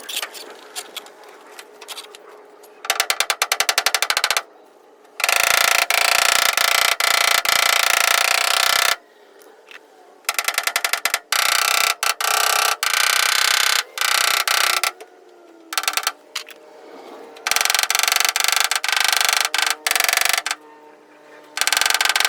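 Loud bursts of rapid mechanical hammering or chattering, each lasting one to four seconds, starting and stopping again and again.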